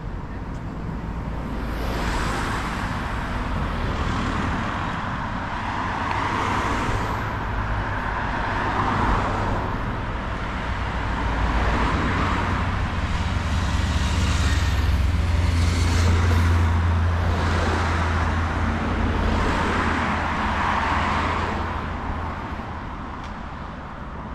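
Road traffic: several cars passing one after another, each with a swell of tyre and engine noise that rises and fades. A low engine rumble underneath is loudest in the middle stretch.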